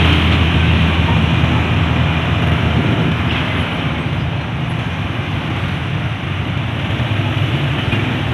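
Steady engine and road noise of a vehicle riding through city streets, heard from on board: a continuous low rumble under a dense hiss.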